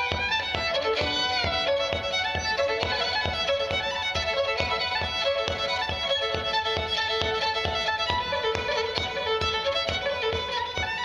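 Solo fiddle playing a fast traditional dance tune in quick bowed notes, with a low thud keeping time about two to three times a second beneath it.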